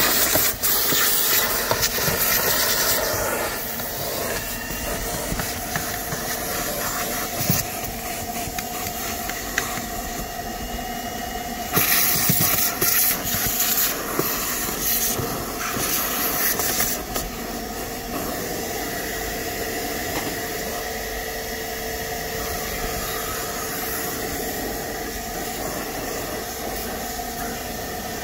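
Vacuum cleaner running steadily, its hose nozzle sucking pet hair and dirt off the car's floor carpet under a folded rear seat. The hiss of the suction surges louder a few times, near the start and about halfway through, as the nozzle works the carpet.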